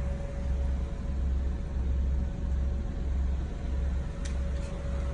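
Steady low rumble with a faint constant hum, and two faint clicks near the end.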